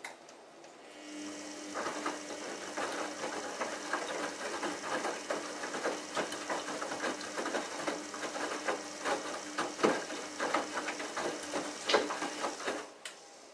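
Samsung Ecobubble WF1804WPU front-loading washing machine turning its drum: a steady motor hum with wet laundry tumbling, sloshing and thudding inside. It starts about a second in and stops shortly before the end.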